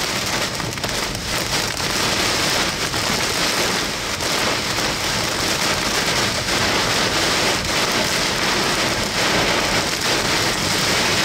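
Torrential rain pelting a vehicle's windshield and roof, heard from inside the car as a steady, dense hiss in a severe thunderstorm.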